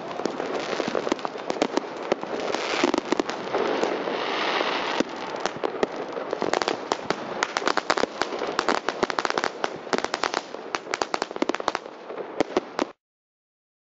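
Many fireworks going off at once: a dense, unbroken barrage of sharp bangs and crackles over a steady din. It cuts off abruptly near the end.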